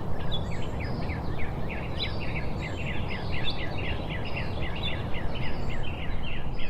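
Birds chirping in a dense, rapid chorus of short high calls, several a second, over a steady low background rumble.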